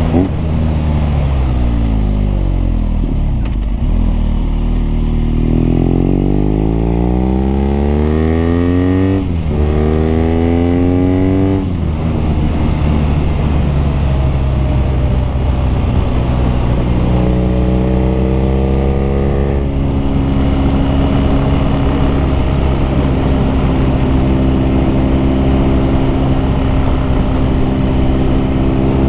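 BMW R nineT's boxer twin engine and exhaust on the move. It slows at first, then accelerates hard, with a gear change about nine seconds in and another climb in revs, then settles into steady cruising.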